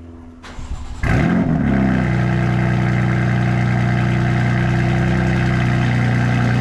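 BMW S55 twin-turbo straight-six in an F82 M4, breathing through catless downpipes, starting up. There is a brief crank, then it fires about a second in with a rev flare whose pitch falls within a second to a steady idle.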